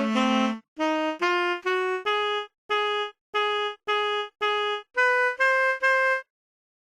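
Mobile phone ringtone: a pitched melody of short separate notes. A chorded phrase ends about half a second in, then come four rising notes, four repeated notes and three higher notes. It stops about a second before the end as the loop pauses.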